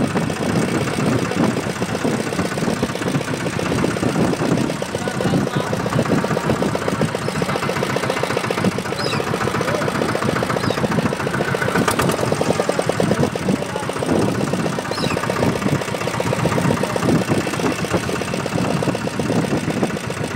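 Fishing boat's engine running steadily with a rapid, even beat. There is a single sharp click about twelve seconds in.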